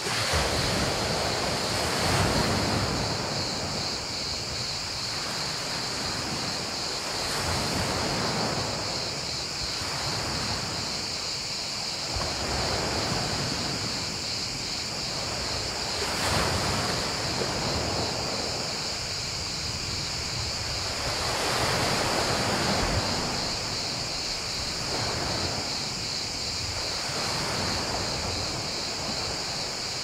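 Small sea waves washing onto a pebble beach, one breaking every two to three seconds, over a steady high chorus of crickets chirping.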